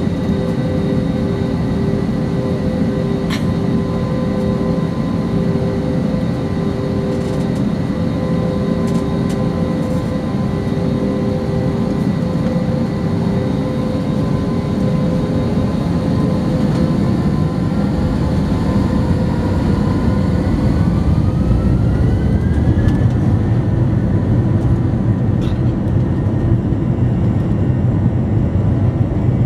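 Airbus A321 jet engines heard from inside the cabin, humming steadily while the plane taxis. About two-thirds of the way in, a whine rises in pitch over several seconds and the low rumble grows louder as the engines spool up.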